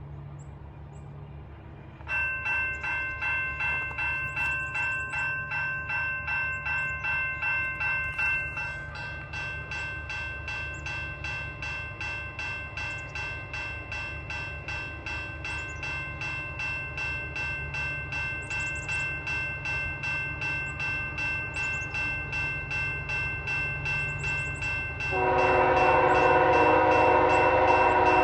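Grade-crossing warning bells start ringing about two seconds in, a rapid pulsing ding that keeps on steadily. Near the end a locomotive air horn sounds loudly over the bells: the five-chime Nathan K5HL on CP 8863, leading the approaching freight train.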